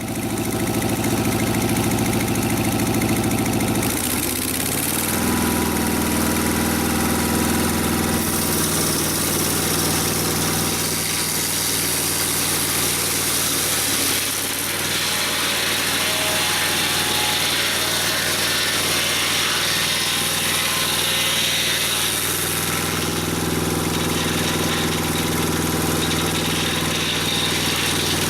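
Engine running steadily, its note changing about four seconds in and again near the end, over a steady hiss.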